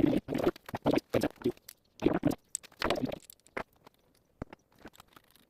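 Irregular knocks, clatters and rustles of objects being handled, in short bursts with brief pauses, thinning out in the second half.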